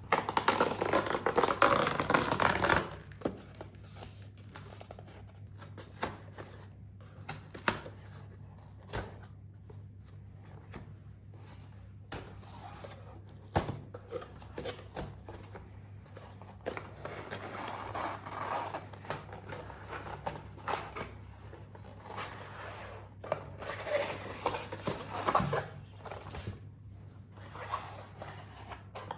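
Packaging being handled and unwrapped: a loud rustle of wrapping in the first few seconds, then scattered clicks and taps and more spells of rustling and scraping.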